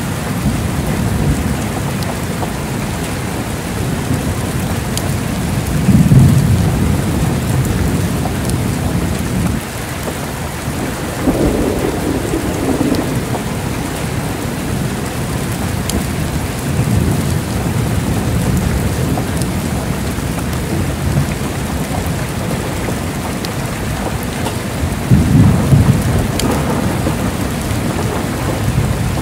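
Heavy rain falling steadily with thunder rumbling low underneath. The loudest rumbles swell about six seconds in and again near the end.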